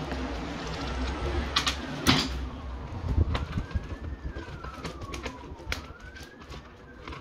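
Sharp clicks and knocks from a plastic socket faceplate and screwdriver being handled as the wires are fitted, the loudest about two seconds in. In the background a faint siren rises and falls slowly in the second half.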